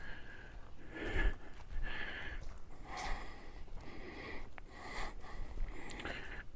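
A man breathing heavily while walking, with soft breaths about once a second.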